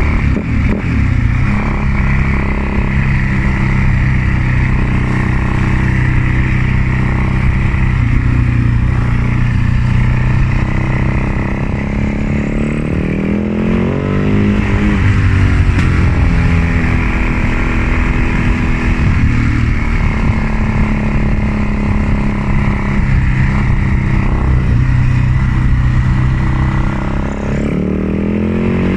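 2004 Husaberg FS 650's single-cylinder four-stroke engine running loud at steady revs, its note dropping and climbing again about halfway through and once more near the end.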